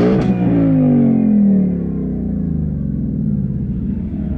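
Ford Mustang GT's 5.0-litre V8 running through its active valve exhaust in Track mode, valves open: a free rev peaks at the start, then the engine note falls over about two seconds and settles into a steady idle.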